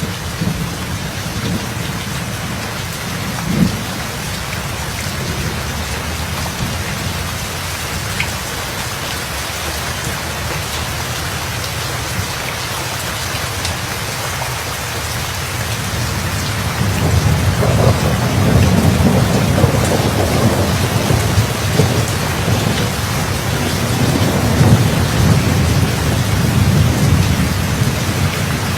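Steady heavy rain falling, with a low thunder rumble that swells up about halfway through and rolls on to near the end.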